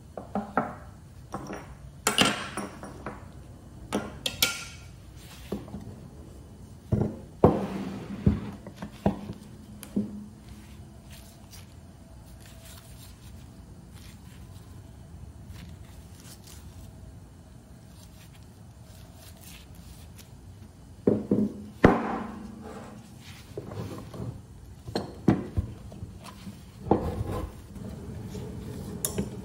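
Cast-iron bench vise parts being handled and taken apart: scattered knocks, clinks and clunks of metal against metal and against a wooden workbench. The knocks come in two busy stretches with a quieter pause between.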